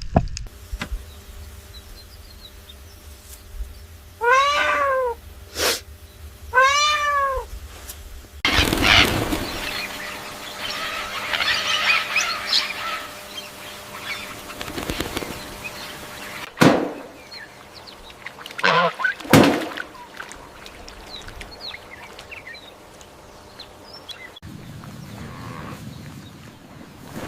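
Two short animal calls about two seconds apart, each rising then falling in pitch. They are followed by a long stretch of rustling noise and a few sharp knocks.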